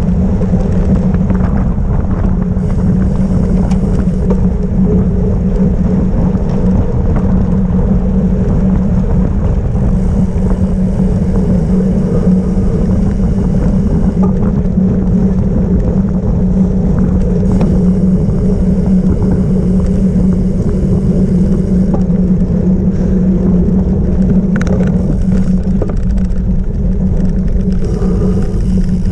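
Steady loud rumble of wind and rolling noise from a cyclocross bike ridden fast over rough off-road ground, with a constant low hum underneath.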